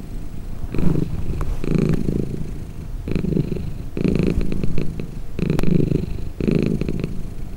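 Domestic cat purring close up: a low rumble that swells and eases with each breath, about once a second.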